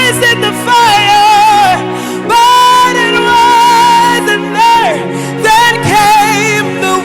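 Slow worship music: a voice singing long held notes with a wavering vibrato over steady sustained chords.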